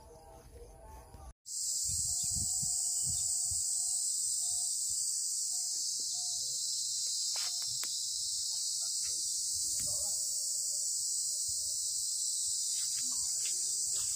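A steady, high-pitched chorus of insects that cuts in suddenly about a second and a half in, with a few faint knocks beneath it.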